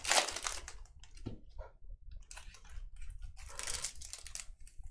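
Card packs and cards being handled: intermittent rustling and crinkling of pack wrappers, with a soft knock about a second in.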